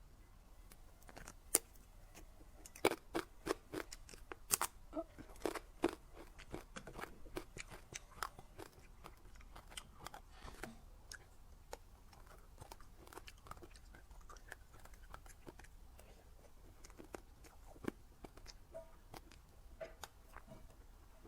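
Close-miked eating of a dessert: crisp crunching bites, loudest and most frequent in the first several seconds, then quieter chewing.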